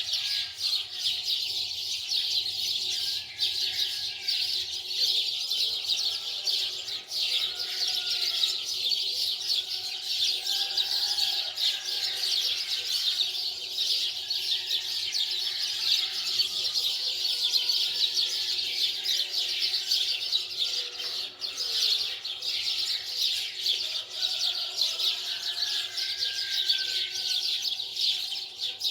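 Many small birds chirping continuously, a dense chorus of rapid high chirps with short whistled notes scattered through it.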